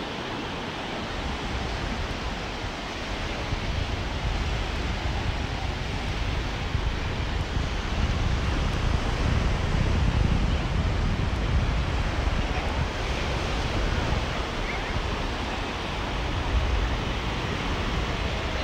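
Sea surf washing on a beach, a steady wash of noise, with wind rumbling on the microphone from about a second in, loudest around the middle.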